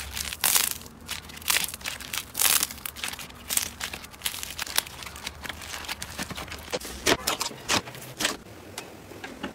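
Slime being squeezed and stretched by hand, giving irregular crackling and crinkling pops, softer near the end.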